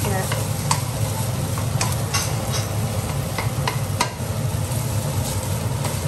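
Wooden spatula stirring and scraping fried rice in a hot nonstick wok, with irregular scrapes and taps over a sizzle. A steady low hum runs underneath.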